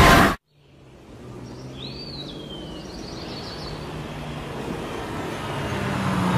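A loud blast of scary music cuts off abruptly, then outdoor ambience fades in: a bird chirps a few times, and the low rumble of a vehicle grows louder near the end.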